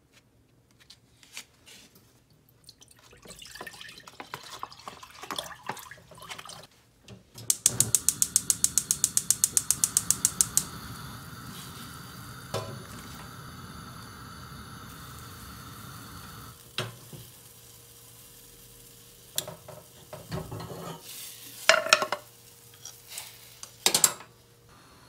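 Gas stove burner lit: its igniter clicks rapidly, about eight times a second, for about three seconds, then the flame hisses steadily under an earthenware pot. Before the ignition there are soft rustles and knocks. Near the end comes a few sharp clanks of the pot and a metal pot gripper.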